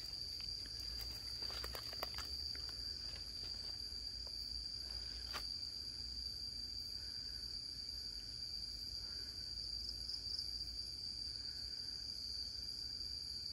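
Night insects, likely crickets, calling in a steady, unbroken high-pitched drone. A few faint clicks and rustles come in the first few seconds.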